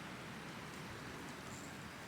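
Faint, steady outdoor background noise with a low wind rumble, and no distinct events.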